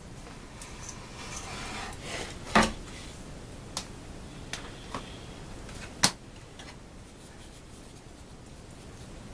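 Handling noises: rubbing and rustling, then two sharp knocks, the first about two and a half seconds in and the second about six seconds in, with a few lighter clicks between them, like a door or objects being moved in a cramped space.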